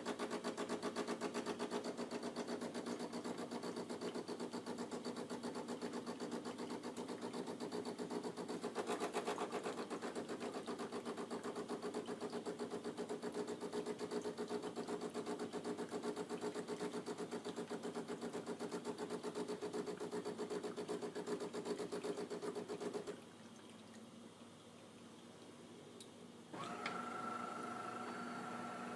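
Pump of a DeLonghi ESAM3300 Magnifica espresso machine buzzing steadily as it pushes hot water out of the two spouts during the start-up rinse cycle. The buzz stops about 23 seconds in, and a few seconds later a different, higher-pitched steady hum starts.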